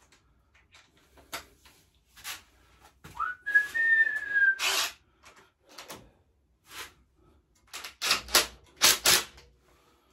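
Scattered clicks, knocks and a few louder clatters of metal parts and tools being handled while a pit bike's rear shock is bolted on. There is also a brief whistled tone that rises and then eases down, about three seconds in.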